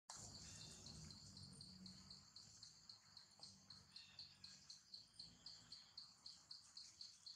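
Faint insect chirping: a short high chirp repeated evenly several times a second over a steady high buzz.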